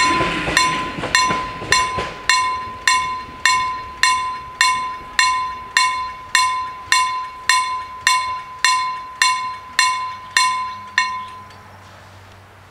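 Level-crossing warning bell ringing in evenly spaced strikes, a little under two a second, as the crossing signals a train, then stopping about 11 seconds in as the crossing clears. The rumble of the departing electric train fades away in the first second or two.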